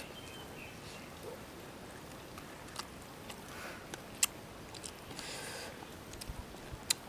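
A person eating noodles with chopsticks: quiet chewing and mouth sounds with scattered sharp clicks, the loudest about four seconds in and another near the end.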